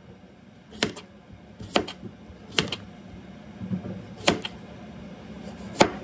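Kitchen knife slicing a cucumber into rounds, each stroke ending in a sharp knock on the cutting board: about five strokes at an uneven pace, roughly one every second or so.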